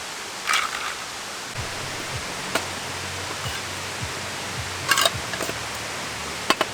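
Wood fire burning with a steady hiss and a few sharp pops and crackles, one about half a second in and two more near the end.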